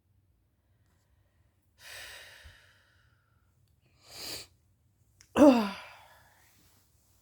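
Woman yawning: two breathy breaths, then a loud voiced sigh about five seconds in that falls in pitch and trails off in breath.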